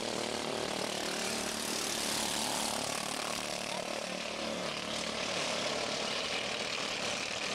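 Several Mini Cup race cars' engines running at racing speed around a short oval, a steady mixed engine drone with no break.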